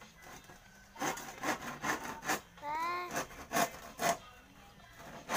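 Irregular rubbing and scraping strokes, a few a second, with a brief vocal sound about three seconds in that rises and then falls in pitch.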